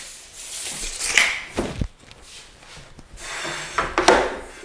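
A wooden trim board being handled and set on a miter saw's table: scraping and rubbing, with a dull knock about a second and a half in.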